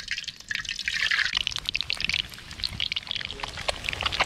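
Hot oil sizzling and crackling in a blackened iron wok as peeled boiled eggs fry in it.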